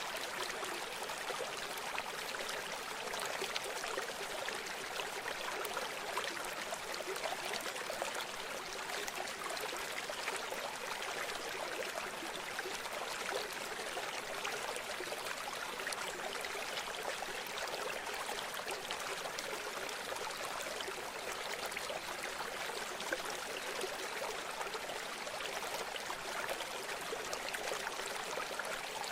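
River water flowing steadily, a continuous rushing and trickling with fine bubbling detail.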